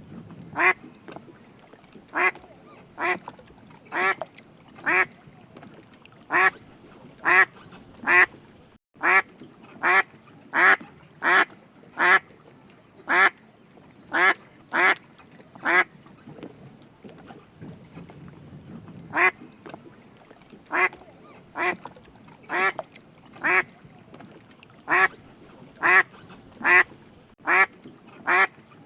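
A duck quacking over and over, one short quack at a time, about once a second, with a pause of about three seconds a little past halfway.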